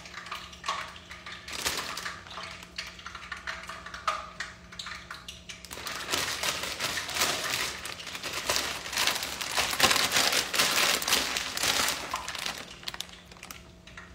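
A plastic bag of frozen fries crinkling and crackling as it is handled and pulled open, busiest over several seconds in the second half.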